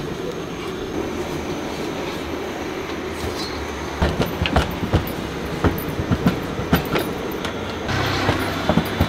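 A rolling pin knocking and clacking on a stainless-steel counter as luchi dough is pressed and rolled out: a run of sharp, uneven knocks starting about four seconds in, over a steady background rumble.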